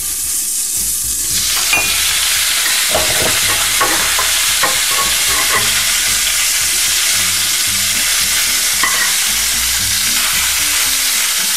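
Crucian carp pieces sizzling in hot oil in a frying pan, with a metal slotted spatula clicking and scraping against the pan as the fish is turned. The sizzle swells about a second in, then holds steady.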